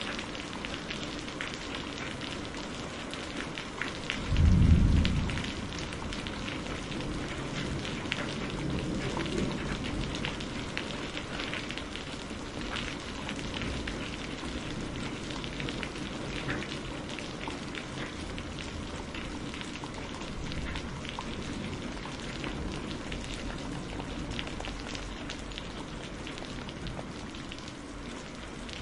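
Steady rain falling, with a sudden loud burst of thunder about four seconds in and a fainter rumble of thunder a few seconds later.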